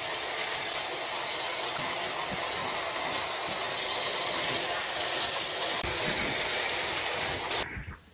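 Kitchen tap running hard into a stainless-steel sink, the water hissing and splashing as lettuce and perilla leaves are rinsed under it; the tap is shut off suddenly near the end.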